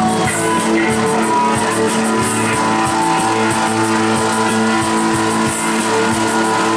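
Rock-style music with guitars and a steady beat, played loud over an outdoor sound system.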